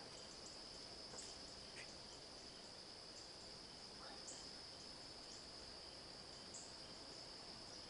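Faint, steady high-pitched drone of night insects, with a few short, higher chirps scattered through it.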